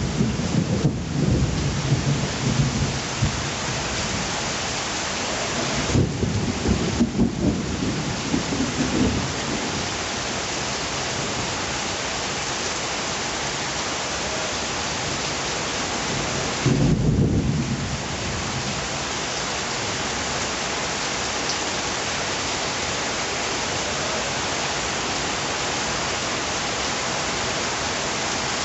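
Steady rain pouring down, with three bouts of low rumbling: near the start, about a quarter of the way in, and just past the middle.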